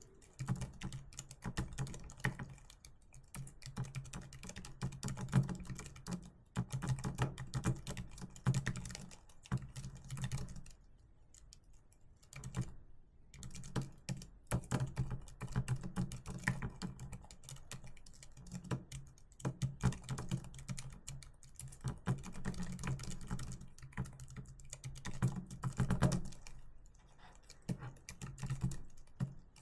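Typing on a computer keyboard: a steady run of keystrokes that pauses for about two seconds roughly eleven seconds in, then carries on.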